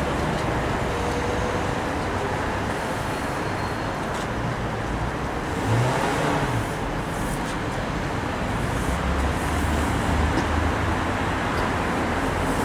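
Steady road-traffic rumble, with a brief louder swell about six seconds in.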